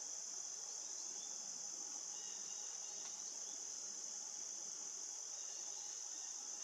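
Steady, high-pitched insect chorus that never breaks, with a few faint short chirps in the middle.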